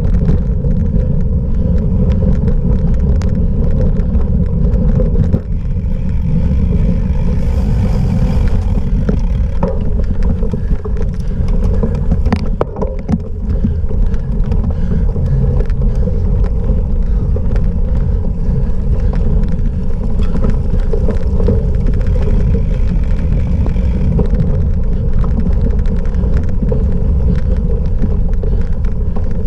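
Steady, loud rumble of wind on the microphone and cyclocross bike tyres rolling over rough off-road ground during a race, with one sharp click about twelve seconds in.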